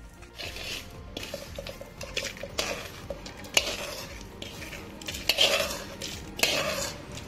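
Steel spoon scraping and clinking against a metal pan, stirring dry-roasted red chillies and cumin seeds. Later the spoon scrapes them off the tilted pan into a stainless-steel mixer jar, in several louder scrapes near the end.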